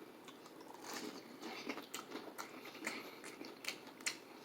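A person chewing fried chicken close to the microphone, with a string of faint, irregular crunchy clicks.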